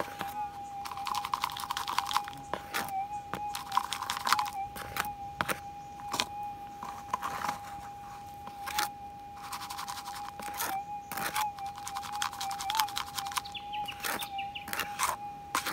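Minelab GPX 6000 metal detector's steady threshold tone from its speaker, with only slight wobbles, while gravel and dirt crunch and rattle in a plastic scoop shaken over the coil to check it for a small gold target.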